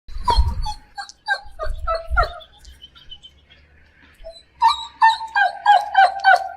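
A dog whimpering: a string of short, high whines, each sliding down in pitch, then a pause and a quicker run of whines.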